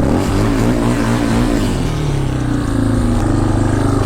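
Several ATV and dirt bike engines idling together, their pitches shifting now and then as throttles are blipped.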